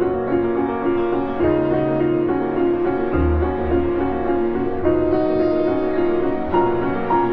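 Background music led by piano, with notes repeating at an even pace over low bass notes.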